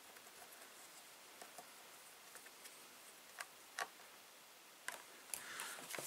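Faint small clicks and ticks of a thin screwdriver turning the tiny screws of a laptop's bottom cover, with two louder clicks a little past halfway. Knocks and handling noise near the end as the laptop is lifted and turned over.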